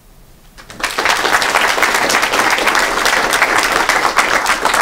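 An audience applauding in a lecture hall, with many people clapping. The applause breaks out about a second in and keeps on steadily after the end of a talk.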